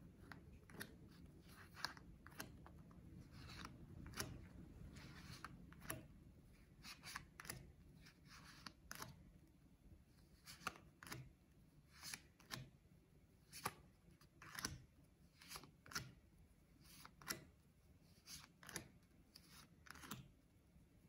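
Playing cards being dealt by hand onto a pile on a wooden table: a run of faint, soft taps and slides, about one or two a second.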